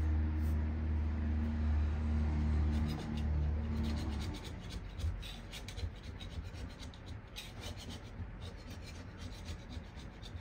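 Hand scraper scraping soaked wallpaper backing off a wall in many short, irregular strokes. A low steady hum runs under it for about the first four seconds, then stops.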